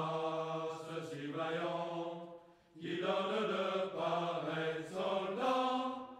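Background vocal music: voices singing or chanting in long held notes, breaking off briefly about two and a half seconds in.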